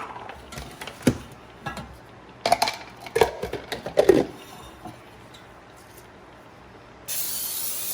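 Metal baking pans knocking and clinking as they are handled, then, about seven seconds in, the steady hiss of an aerosol can of non-stick baking spray with flour and oil being sprayed into a pan.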